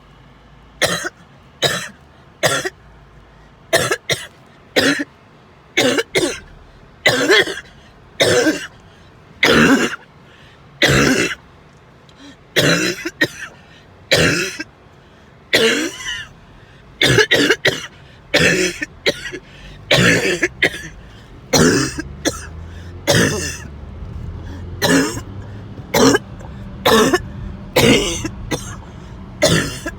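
A person coughing over and over in a prolonged coughing fit: short coughs about once a second, often two or three in quick succession.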